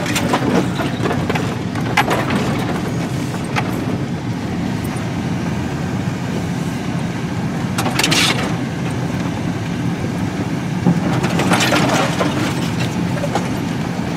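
A vehicle creeping along a rough, overgrown dirt track, heard from inside the cab, with a steady engine and road rumble and a few knocks. Brush and branches scrape along the body, a nails-on-the-chalkboard sound, loudest about eight seconds in and again around twelve seconds.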